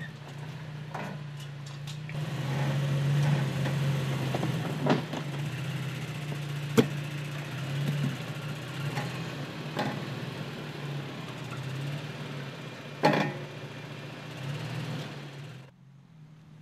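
2017 Toyota Tacoma TRD Pro's 3.5-litre V6 running steadily at low revs while the truck crawls over rocks, with several sharp knocks along the way. The sound drops away suddenly near the end.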